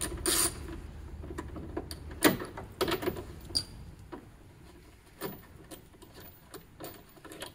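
Socket ratchet clicking as it loosens a 10 mm bolt: a burst of clicks at the start, then scattered small clicks and taps as the loosened bolt is worked out by hand.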